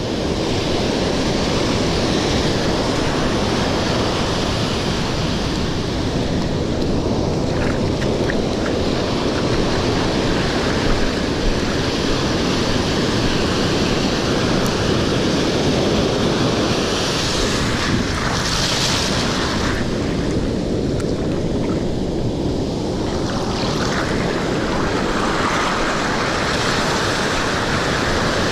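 Ocean surf breaking and washing up the sand in a steady, loud wash that swells and fades, with wind rumbling on the microphone.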